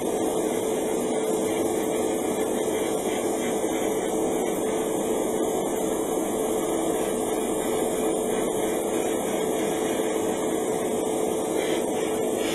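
Steady hum and airy hiss of airbrushing equipment: a spray booth's extractor fan running while an airbrush sprays paint onto a model part.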